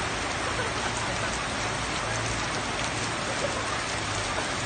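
Steady rain falling on the ground and surrounding surfaces: an even, unbroken hiss with faint individual drop ticks.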